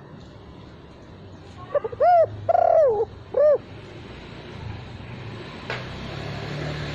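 Spotted dove (tekukur) cooing: one phrase of four rounded coo notes about two seconds in, the third drawn out longest, with no closing 'kuk' note. A faint click follows near the end.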